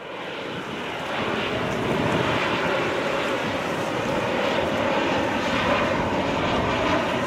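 Jet engines of a twin-engine narrow-body airliner flying low overhead: a rushing engine noise with a wavering whine in it, building over the first couple of seconds and then holding steady.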